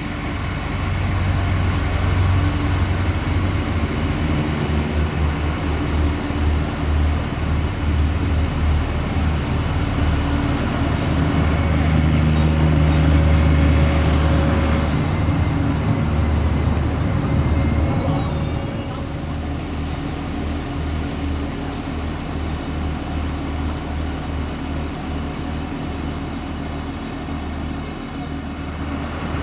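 Irish Rail 29000 Class diesel multiple unit moving slowly beneath, its diesel engine running with a pulsing low drone. The drone grows louder about a second in, is loudest midway as the engine car passes directly below, and eases off after that.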